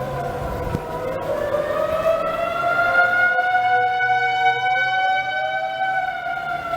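Outdoor civil defense sirens sounding a steady tornado warning alert. The pitch slowly rises and falls, and the tones of more than one siren cross one another.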